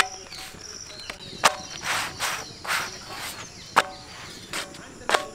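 Four sharp metallic clinks of a metal utensil knocking on a large iron griddle (dosa tawa), with soft rustling between them as flatbreads are handled on it. Insects chirp faintly.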